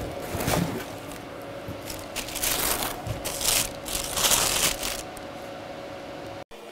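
Tissue paper rustling and crinkling in several short spells as work boots are unwrapped in their cardboard shoe box; it cuts off suddenly near the end.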